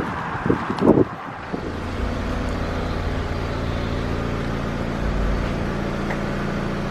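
A few light knocks, then a machine starts running steadily about a second and a half in, with a low, even mechanical hum.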